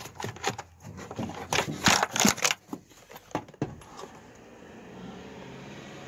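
Plastic wiring clips and connectors clicking and rattling as a wiring loom is pulled free by hand: an irregular run of sharp clicks and rustles for about four seconds.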